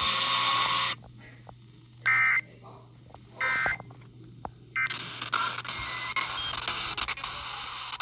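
Eton Elite Traveler portable radio being retuned on FM. Its hissy audio cuts off about a second in, then two short electronic beeps and a few soft clicks sound while the buttons are pressed. Static hiss comes back about five seconds in as it lands between stations.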